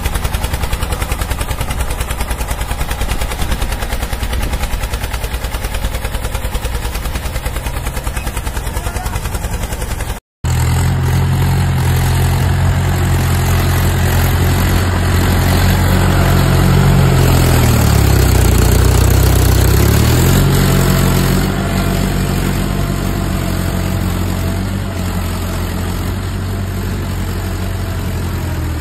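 Small engine of a homemade mini tractor running with a rapid, even chugging. After a cut, the small engine of a homemade mini combine harvester runs steadily, its pitch dipping and recovering once about two-thirds of the way through.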